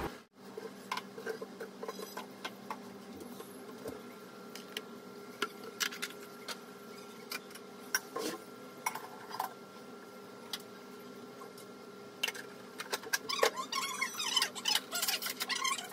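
Scattered light clicks and knocks of plastic food containers being handled and set down on a stone kitchen counter, over a steady faint hum. The handling gets busier with rustling near the end.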